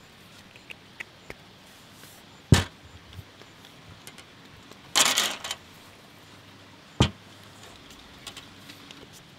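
Raw potatoes being skewered on thin wooden sticks and handled on a steel tabletop: two sharp knocks about four and a half seconds apart, a brief scrape between them, and faint clicks.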